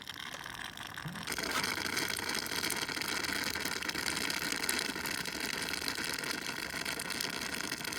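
Hot water draining out of the opened boiler drain valves of a Breville BES920 Dual Boiler espresso machine during descaling: a steady hiss of flowing water that starts about a second in.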